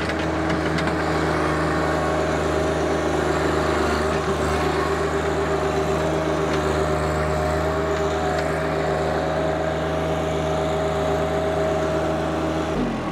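John Deere 1025R compact tractor's three-cylinder diesel engine running steadily at working speed while the front loader pushes and carries dirt.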